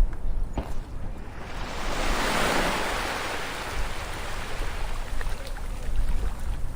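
Ocean waves on a shore: a wave washes in about a second and a half in, swells to a peak and slowly fades as it draws back, over a steady low rumble of surf.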